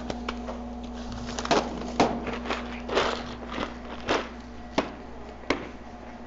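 Scattered clicks and knocks of a clear plastic tackle tray being picked up from a bag and carried, with footsteps on a hard floor, over a steady low hum.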